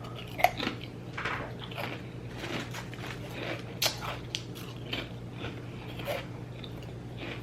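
A person biting and chewing a wet, sloppy grinder sandwich close to the microphone: irregular soft crunches and mouth sounds.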